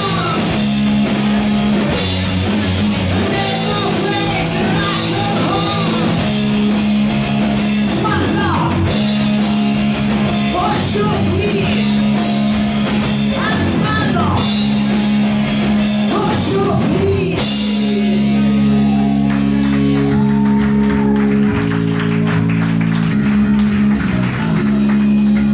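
A live rock band playing: electric guitars and bass holding low, sustained chords over drums, with a singer's vocals on top. About two-thirds of the way through the riff changes and the singing mostly stops.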